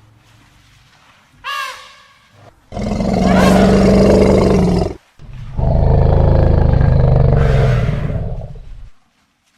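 Elephant calls: a short, higher call with a bending pitch about one and a half seconds in, then two long, loud, low roars of two to three seconds each, with a short break between them.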